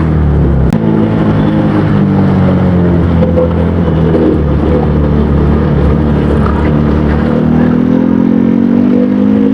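KTM Duke 200's single-cylinder four-stroke engine and exhaust running loud. The engine note drops in the first second, holds fairly level, then rises again over the last couple of seconds as the revs climb.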